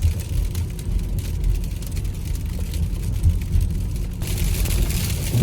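Car running, a steady low rumble of engine and road noise heard from inside the cabin, with a hiss rising about four seconds in.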